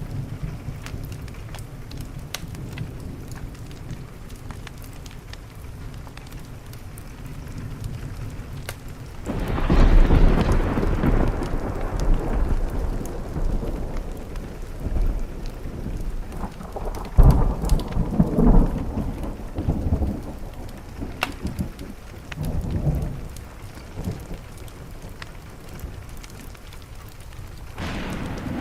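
Thunderstorm: steady rain under long rolls of thunder. A loud peal comes about nine seconds in and fades slowly, more rumbles follow over the next several seconds, and another roll builds near the end.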